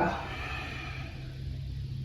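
A soft breath out during the first second, over a steady low electrical hum.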